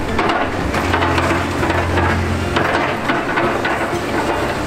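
Doosan excavators running steadily while their grapples pick through and drop demolition lumber, with repeated wooden clattering, knocking and cracking over the low drone of the diesel engines.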